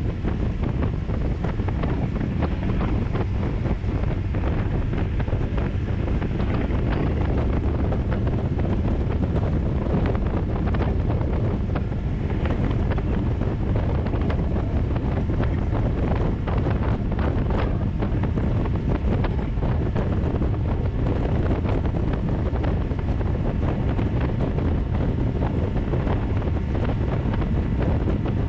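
Steady wind buffeting on the microphone aboard a small open motorboat under way, with water rushing along the hull.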